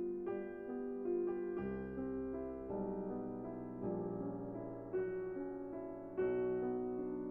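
Slow solo piano background music, sustained notes changing about every half second to a second.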